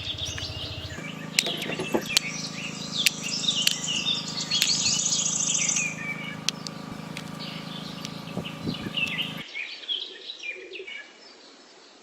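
Several birds chirping and twittering in quick short calls, over a steady low hum that stops about three-quarters of the way through, after which the chirps go on more faintly.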